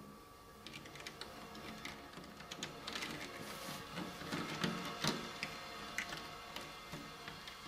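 Small hard objects clicked, scraped and rattled against prepared guitar strings in free improvisation: a busy, irregular stream of clicks and rattles over faint ringing string tones, with a couple of sharper knocks about five seconds in.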